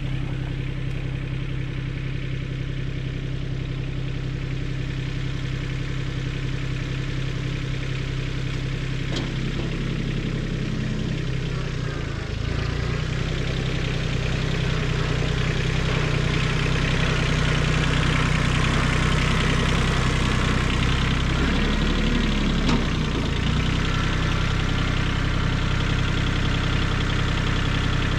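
Kubota B20 backhoe's diesel engine running steadily at low speed, then picking up speed and running louder from about twelve seconds in.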